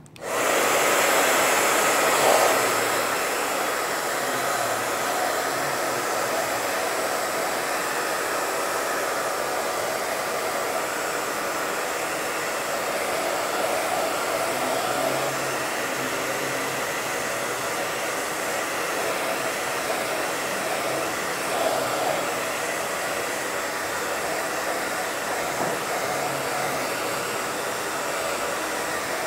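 Hand-held hair dryer switched on and blowing steadily, used to dry fresh paint on a small craft box.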